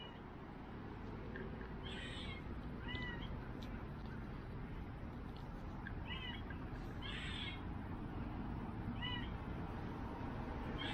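Five short, high animal calls spaced a second or more apart, over a steady low background rumble.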